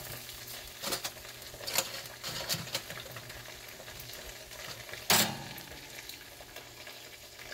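Half-baked marinated chicken pieces sizzling in a hot oven pan while being turned over, with a few knocks and scrapes of the utensil against the pan, the loudest about five seconds in.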